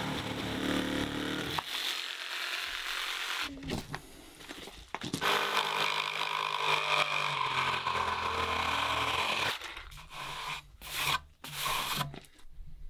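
Jigsaw sawing through a wooden board, running in stretches with short breaks; the longest, steady run lasts about four seconds from around five seconds in. A few brief knocks follow near the end.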